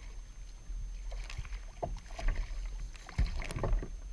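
Water sloshing against a kayak hull, with scattered knocks and creaks from the boat and fishing tackle and a heavier thump a little past three seconds in.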